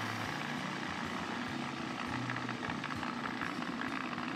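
Electric food processor running steadily, its motor driving the blade through a thick nut paste being blended into a pâté.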